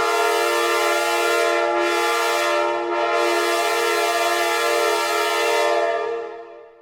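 Recreated sound of a Nathan K5LA five-chime train horn, one long held blast of its chord, with two short dips in the air hiss about two and three seconds in, fading out near the end.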